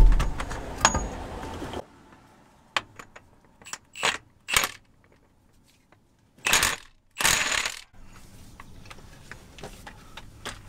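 A cordless impact wrench and its socket being fitted to the nut of a truck's transmission brake drum. A heavy knock at the start, then a few sharp metallic clinks, then two short bursts about half a second long.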